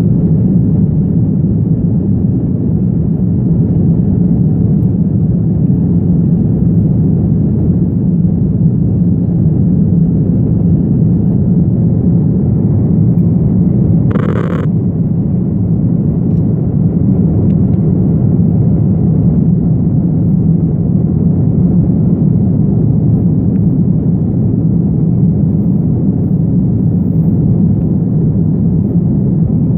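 Jet airliner engines at take-off power heard from inside the passenger cabin: a loud, steady, deep rumble. About halfway through, a short tone sounds over it.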